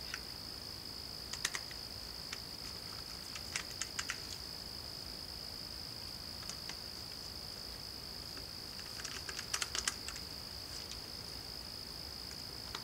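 A hand screwdriver starting small screws into the plastic housing of a cordless impact driver, giving scattered light clicks and ticks with a quick cluster of clicks about two-thirds of the way in. A steady high-pitched whine runs underneath.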